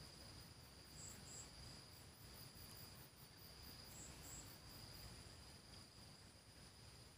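Near silence with a faint insect chorus: a steady high-pitched drone over a faster pulsing shrill, and short paired chirps about a second in and again about four seconds in.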